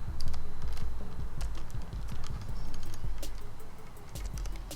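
Small plastic clicks and rattles from airbag wiring connectors being handled and snapped together, over a low handling rumble.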